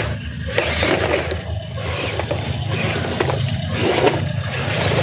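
Radio-controlled toy dump truck driving over stony ground, its small motor and gears running steadily with gravel scraping and crunching under the wheels in uneven surges.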